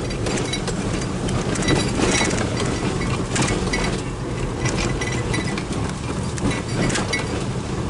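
A car driving over a rough, bumpy road: a steady low rumble, with frequent short rattles and clinks from the car as it jolts.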